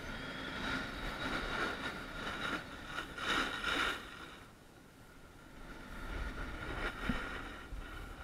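Skis scraping and hissing over packed snow while skiing down a groomed piste, with air rushing past the camera; the noise swells and fades twice as the run goes on.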